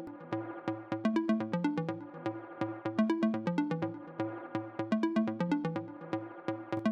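Electronic background music with a steady beat and a repeating synth melody.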